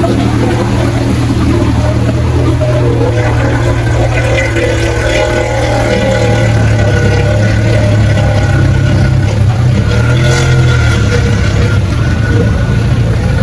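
A motor vehicle's engine running steadily at low revs while driving through a flooded street. Under it is a continuous hiss of water and rain.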